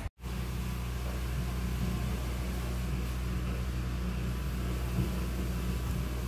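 Tabby cat purring steadily as it is stroked, a low even rumble.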